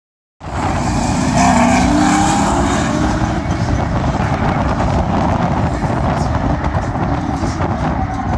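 Drift cars on the track, engines running at high revs with tyre noise, loudest about one to three seconds in. The sound cuts in after a split second of silence.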